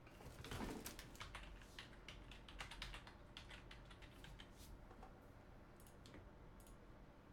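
Faint typing on a computer keyboard: an irregular run of quick key clicks that thins out near the end.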